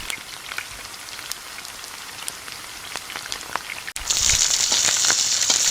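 Faint crackling with scattered ticks, then about four seconds in a louder, steady sizzle begins as chopped vegetables fry in a deep pan of oil.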